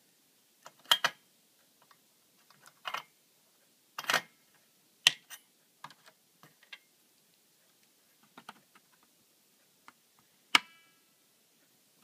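Scattered clicks and knocks of plastic cable connectors and wiring handled against a metal computer case while a small power plug is fitted to an optical drive's back plane. The loudest is a sharp click with a brief metallic ring about ten and a half seconds in.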